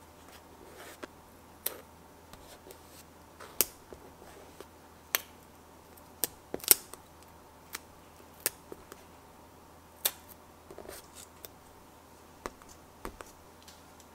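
Small craft tools working on paper stickers: irregular sharp clicks and snips, about a dozen, as tweezers press the sticker pieces down and small scissors trim them.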